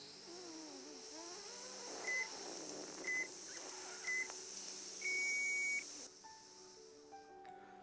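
Workout countdown timer beeping: three short beeps a second apart, then one longer beep as the count runs out, over soft background music.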